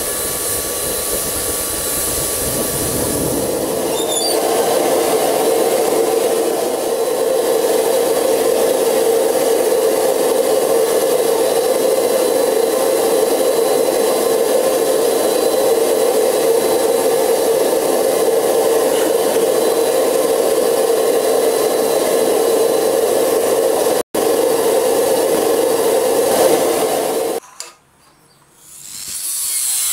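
A forge burner running: a steady rushing noise that cuts off abruptly near the end.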